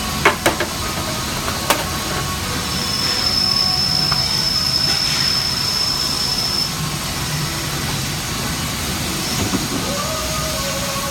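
CNC lathe and robot loading cell running: steady machine noise, with a couple of sharp metallic clicks in the first two seconds and a high steady whine lasting about four seconds in the middle.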